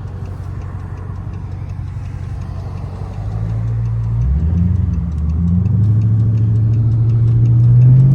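Chrysler 300S's 5.7 Hemi V8 idling with a low rumble, then about three seconds in pulling away under throttle. The note climbs, dips briefly about a second later, and climbs again, getting louder. A light, even ticking runs underneath.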